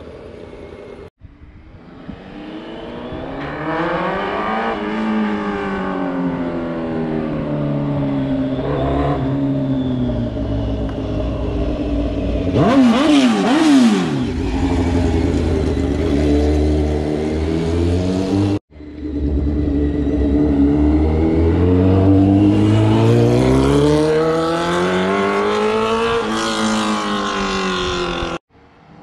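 2004 Kawasaki ZX-10R's inline-four engine accelerating through the gears, its pitch climbing and dropping back with each shift, and falling sharply as the bike passes by about 13 seconds in. The sound cuts off abruptly twice, and another run climbs through the gears near the end.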